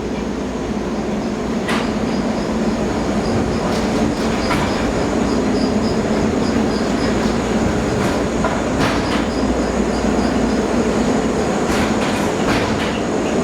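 Resort tram running on its rails: a steady drone from the car, with irregular sharp clicks and clacks from the wheels on the track.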